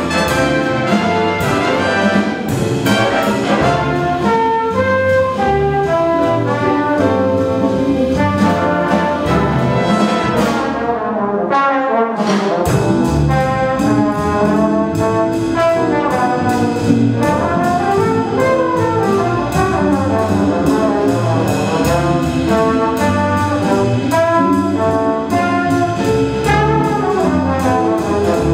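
High school big band playing a jazz waltz: trumpets and trombones lead over drum kit cymbals, upright bass and piano. The bass, drums and cymbals drop out for about two seconds near the middle, then the full band comes back in.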